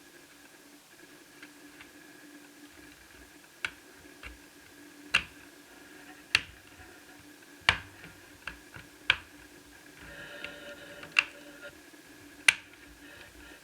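Sharp, irregular clicks and taps of small plastic parts of an Asus Eee PC 1001P netbook being handled and fitted during reassembly, about nine in all, over a faint steady hum.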